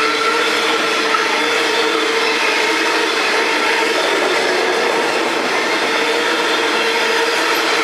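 Coal hopper wagons of a freight train rolling steadily past close by, a continuous loud rumble and clatter of wheels on the rails with a faint steady hum in it.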